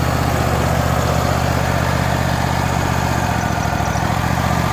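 Wood-Mizer bandsaw sawmill's engine running steadily.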